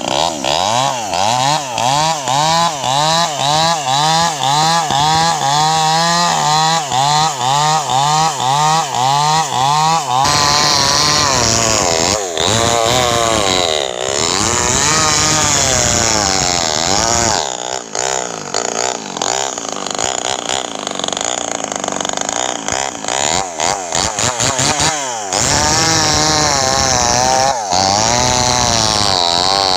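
Two-stroke chainsaw running at high revs while cutting wood. For the first ten seconds its engine note wavers up and down about twice a second; after that it runs on more steadily, with dips under load.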